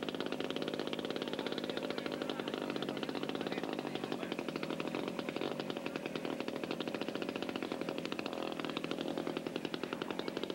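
Radio-controlled model airplane engine running at high revs: a steady, fast, rattling buzz.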